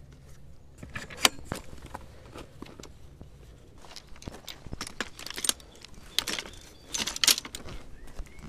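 Fishing tackle on a loaded sack barrow clattering and rattling as the barrow is handled and moved over gravel: a series of irregular knocks and rattles, loudest about a second in and again near the end.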